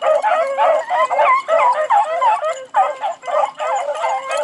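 A pack of beagles baying together, many voices overlapping with hardly a break, as they run a rabbit's scent trail.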